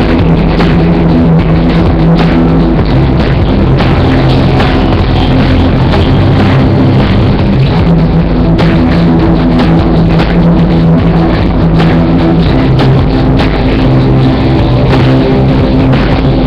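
Loud rock music: a drum kit beating steadily under held bass notes that change every second or two.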